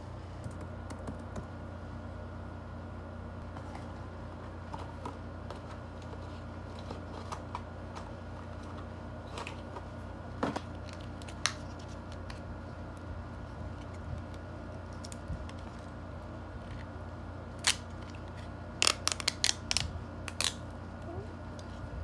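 Hands handling a small paper-wrapped chocolate packet: scattered light clicks and ticks, then a quick run of sharp crackles near the end as the wrapper is peeled open. A steady electric fan hum runs underneath.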